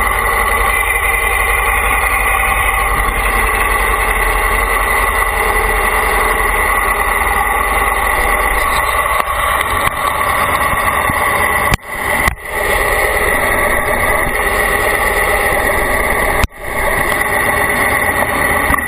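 Steady vehicle engine and running noise heard from on board during a ride, with a constant low rumble and a steady whine. The sound drops out sharply for a moment a little past the middle and again later.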